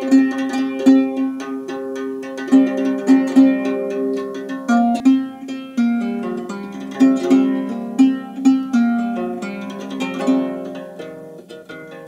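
Reproduction Anglo-Saxon harp, a six-stringed wooden lyre, plucked by hand: a repeating figure of ringing notes built around one low note struck over and over, with higher strings sounding above it. The playing grows a little softer near the end.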